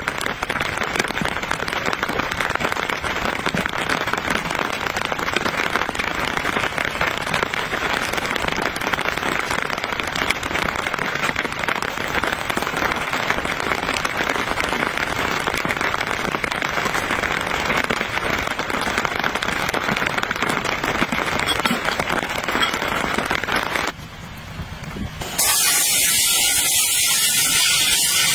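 Steady rain pattering on the canopy tarp overhead, a dense crackling patter. About 25 seconds in it gives way to a louder, brighter hiss of cooking on a portable gas camp stove.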